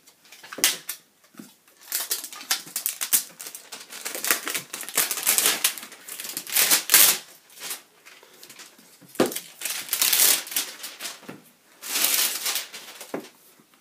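Cardboard product box handled and turned over by hand: irregular rustling, crinkling and scraping of the packaging, with scattered sharp taps and clicks as it is gripped and set down on a shelf.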